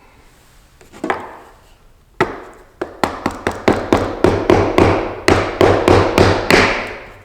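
A plywood plug being tapped down into a 3-inch PVC pipe: two single knocks, then repeated knocks about three a second from about three seconds in, seating the glued plug.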